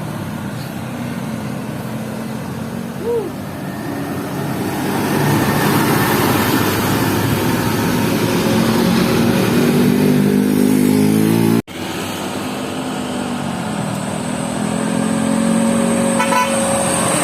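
Bus engines running and passing close by, growing louder, with an abrupt change about two-thirds through as a different pass begins. A short pulsed horn sounds near the end.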